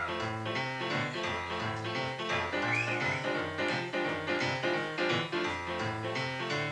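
Piano playing an up-tempo blues, a repeating left-hand bass figure under right-hand chords and runs.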